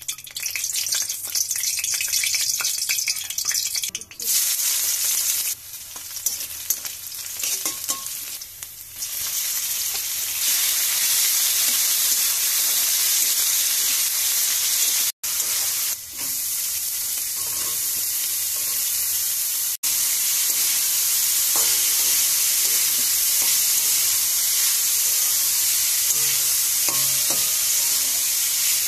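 Chopped chicken with onion and garlic, then shredded cabbage and carrot, sizzling in hot oil in a steel wok, stirred with a spatula that scrapes against the metal. The sizzle is patchy at first, then settles into a steady hiss, cut off abruptly twice for a moment.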